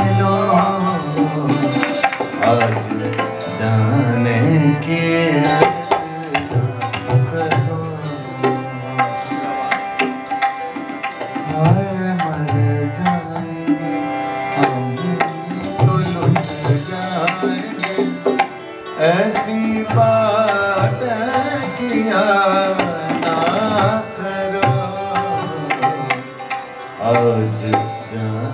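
Instrumental interlude in a ghazal: tabla playing a busy pattern of sharp strokes with gliding bass notes, over quick falling runs on the santoor.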